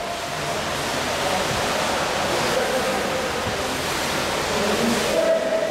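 Water splashing from water polo players swimming and contesting the ball in a pool, heard as an even rushing noise.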